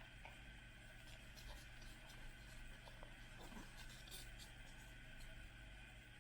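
Faint light scratching and small clicks of hands handling the plastic packaging of a toy surprise ball, scattered over a low steady hum.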